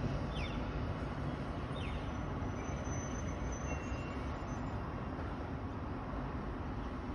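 A steady low rumble of background noise, with a few faint short high chirps over it.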